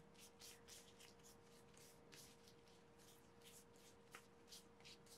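Faint, quick brushing and dabbing strokes, a few a second and irregular: a powder sponge being pressed and rubbed over prosthetic elf ears by gloved hands to set the makeup.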